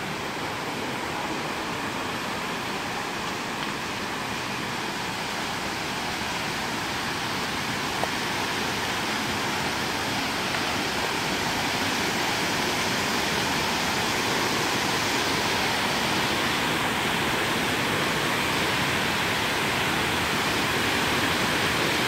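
Water rushing over small waterfall cascades, a steady even rush that grows gradually louder as the cascades come closer.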